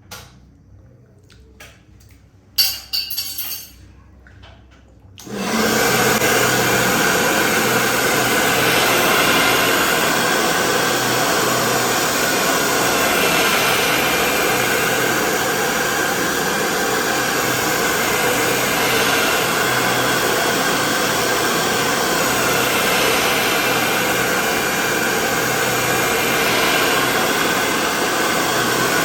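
A few handling knocks, then a hand-held hair dryer switched on about five seconds in, running steadily at one speed.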